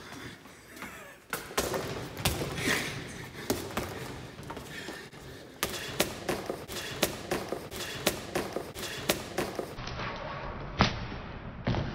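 Boxing-glove punches landing one after another, a few irregular ones at first, then a steady run of about three a second from around halfway.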